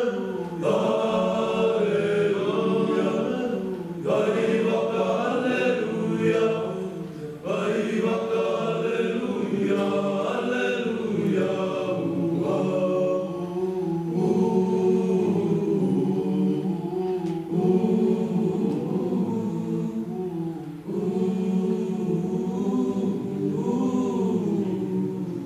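High-school Pasifika boys' choir singing a cappella in long held phrases, with brief breaks for breath between them.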